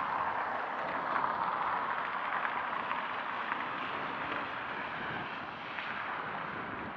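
Street traffic: a steady hiss of car tyres on a wet road, a little louder in the first few seconds and fading slightly toward the end.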